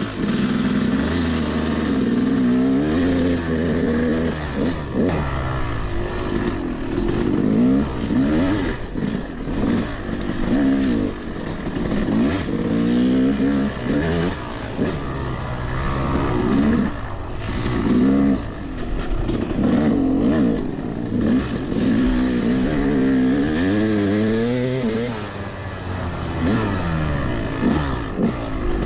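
Yamaha YZ250's single-cylinder two-stroke engine revving up and dropping back again and again as the bike is ridden hard. The rider says the clutch and top end are worn out.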